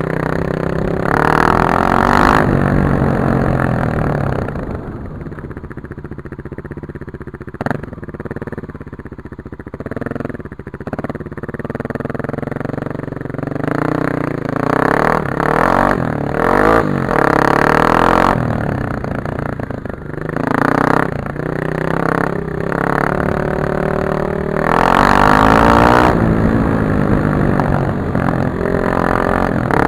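Kawasaki KLX250S single-cylinder four-stroke engine running under way, its pitch rising and falling as the throttle opens and closes. It drops to a quieter, lower note for several seconds about five seconds in, then revs up again, loudest near the end.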